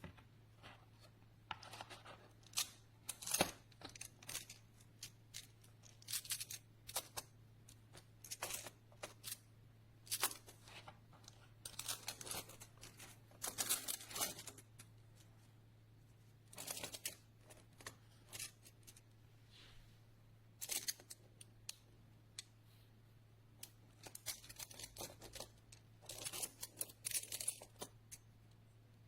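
Small magnetic plastic building blocks being handled: irregular sharp clicks, scrapes and short rattles as pieces are snapped together, pulled apart and shuffled. A low steady hum runs underneath.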